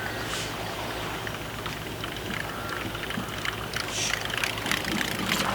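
A boat's motor runs steadily as a low hum. Scattered splashing and clicking sounds are busiest about four seconds in.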